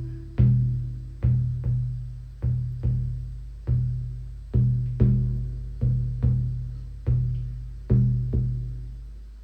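Shamanic frame drum beaten in a slow rhythm of single and paired strokes, about one and a half a second. Each stroke gives a deep, low, ringing tone that dies away before the next.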